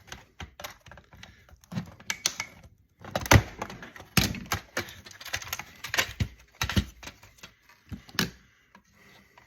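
Irregular clicks, knocks and rattles of a screwdriver and the metal and plastic parts of an electronics casing being handled and taken apart, with the loudest knock about three and a half seconds in.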